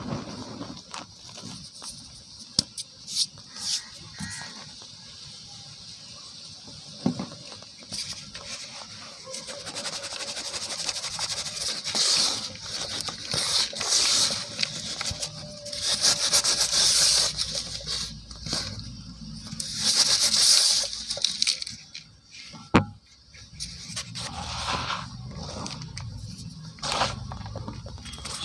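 Dry cement powder scooped up by hand and let fall, hissing and crackling as it pours and rubs, in repeated swells. A plastic bowl is scraped and pressed through the powder, with small clicks and one sharp knock late on.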